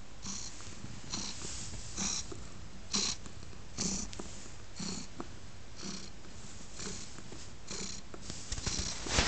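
Domestic cat purring steadily, the purr swelling in a regular rhythm about once a second. In the last second, a few louder knocks and rustles close by.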